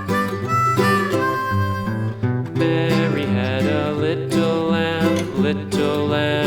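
Instrumental country-style music with acoustic guitar and harmonica.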